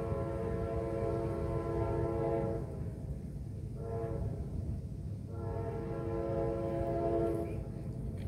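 Diesel locomotive air horn sounding a multi-note chord in three blasts: a long one, a short one about four seconds in, and another long one, over a steady low rumble.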